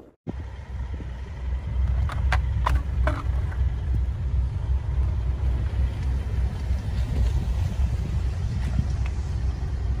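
Vehicles running on a snowy highway: a steady low rumble, with a few light clicks about two to three seconds in.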